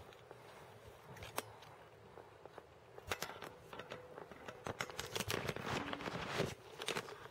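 Handling noise from a handheld camera being fumbled close to its microphone: scattered sharp clicks and rustles that thicken into a dense run about three seconds in.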